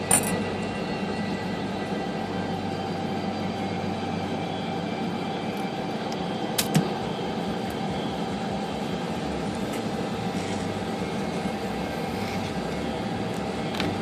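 IBM Selectric typewriter's electric motor running with a steady hum, while the cracked centre hub is cleaned. There is a sharp click just after the start and another about six and a half seconds in.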